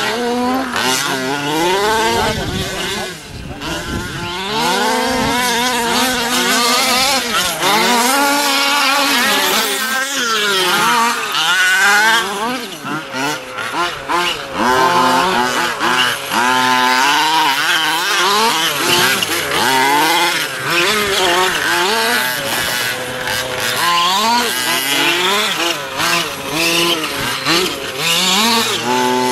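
Several gas-powered 1/5-scale RC cars, among them a Losi 5ive, racing with their small two-stroke engines revving up and down as they accelerate and brake around the track.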